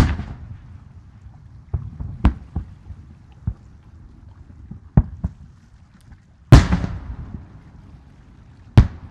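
Aerial firework shells bursting: about nine sharp bangs at uneven intervals and of varying strength, over a low rumble. The loudest comes about six and a half seconds in, and the big ones trail off in an echoing tail.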